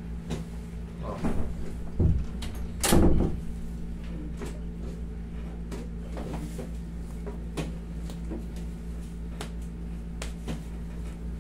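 A few short knocks and creaks from a padded massage table as hands press down on a person's lower back, the loudest about three seconds in, then only faint clicks. A steady low hum runs underneath.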